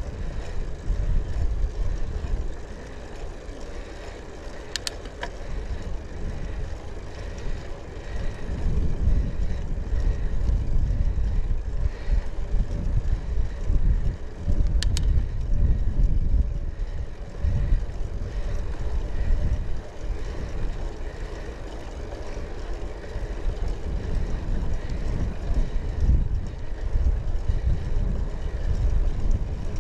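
Wind buffeting the microphone and road rumble from a bicycle being ridden, a low uneven rumble that swells and eases, with a couple of brief sharp clicks.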